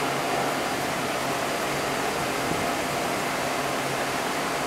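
Steady rushing hum of a Taipei Metro C381 train standing at an underground platform, its onboard equipment running, mixed with the station's ventilation noise.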